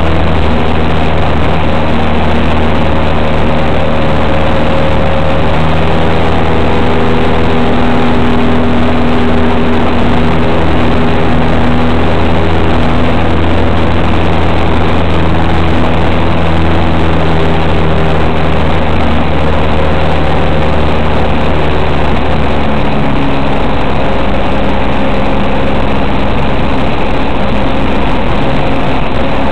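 Single-engine light aircraft's piston engine and propeller running steadily in low-level flight, a loud continuous drone whose note shifts slightly about three-quarters of the way through.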